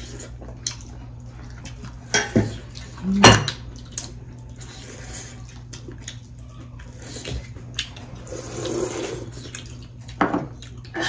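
Eating sounds: dhido and curry squished and mixed by hand on metal plates, and soup slurped from small bowls, with a few louder sharp sounds about two and three seconds in.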